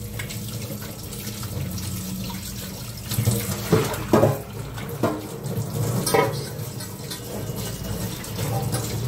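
Water running from a tap into a sink while dishes are washed by hand, with a few short clanks of the dishes knocking together between about three and six seconds in.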